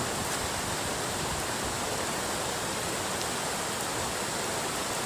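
A small creek in flood, its fast water rushing by as a steady, even noise.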